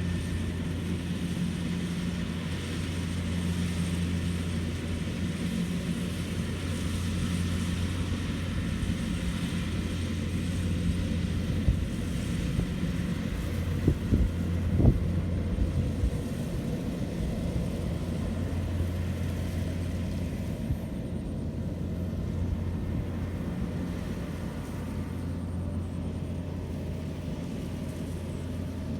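Rice combine harvester running steadily with a deep, even engine hum, with a few short knocks a little under halfway through.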